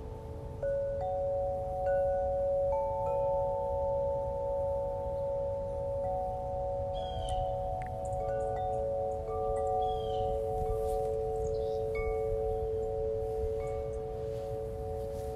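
Calm ambient chime music: long, overlapping bell-like tones, with new notes coming in every second or two. Some of the tones waver slightly. A few short high chirps come in about halfway through.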